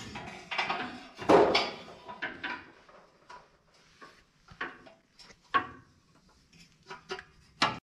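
Scattered knocks and clanks of tools on metal as the old exhaust pipe under a Nissan Hardbody mini truck is worked loose from beneath, with a longer, louder clatter about a second in.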